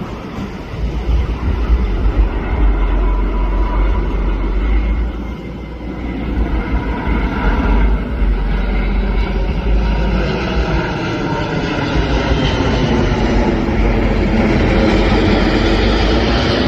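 Airbus A380's jet engines rumbling as the airliner passes, growing louder over the second half with a sweeping, phasing quality. Wind buffets the microphone.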